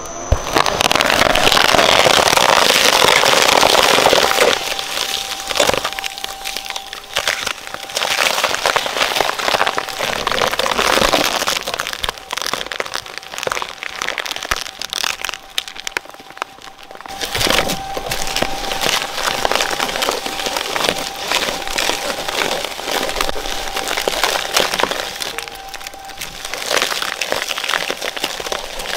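Twin-shaft shredder's steel cutters tearing through a plush toy spider with a polystyrene foam body, then a plastic case packed with foam: continuous crunching, crackling and sharp snaps over a thin steady whine. It is loudest in the first few seconds and briefly drops away about two-thirds of the way through.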